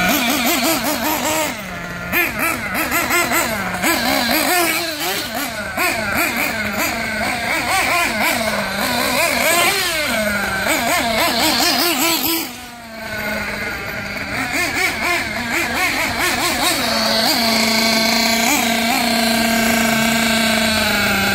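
Small nitro glow engine of a 1/8-scale RC buggy running at a high buzzing pitch that keeps rising and falling as the throttle is blipped. It briefly goes quieter about twelve seconds in.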